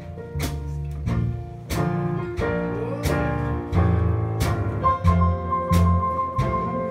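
Traditional New Orleans jazz band playing an instrumental passage of a slow ballad, with a steady beat of about three beats every two seconds and a walking low bass line. A long high note is held from about five seconds in.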